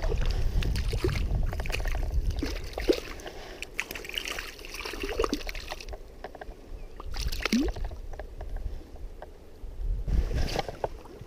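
Stream water running, with wind buffeting the microphone in uneven waves and scattered small clicks and splashes.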